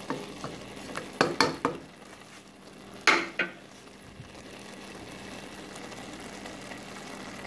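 Wooden spoon clicking and scraping in a pan of simmering rice, with two sharp knocks about three seconds in. Under it the rice sizzles steadily, its cooking water almost gone as it nears done.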